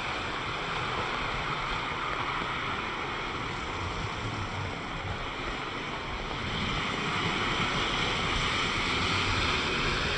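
Steady rushing noise of rain and water, a little louder in the last third.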